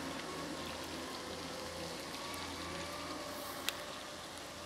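Steady rain with a faint low drone underneath, and a single sharp click about three and a half seconds in.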